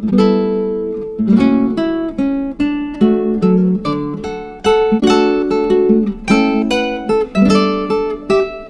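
Background music of plucked acoustic guitar, a strummed and picked melody with notes struck about every half second.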